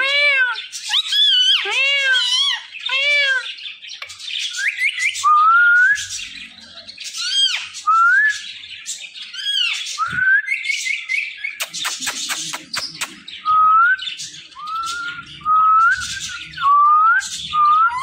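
Indian ringneck parakeet calling. First comes a run of repeated arching calls about once a second, then chattering with short rising whistles, broken by a quick run of clicks about twelve seconds in.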